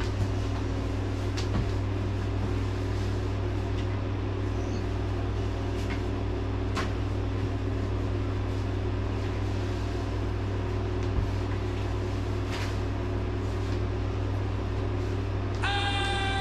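Window air conditioner running with a steady hum, with a few light knocks and rustles as bedding is handled on a bed.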